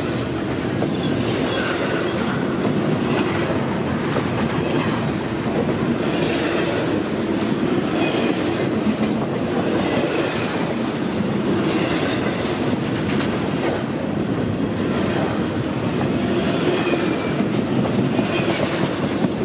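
Double-stack intermodal freight train's container well cars rolling steadily past at close range, wheels clacking over the rail. Faint, short high-pitched wheel squeals come now and then.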